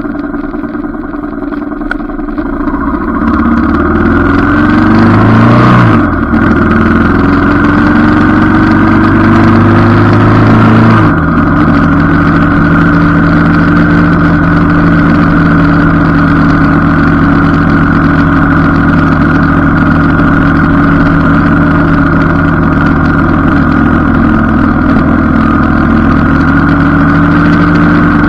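Motorcycle engine pulling away from low speed, its pitch rising in two runs, each cut short by an upshift about six and eleven seconds in. It then holds a steady cruise.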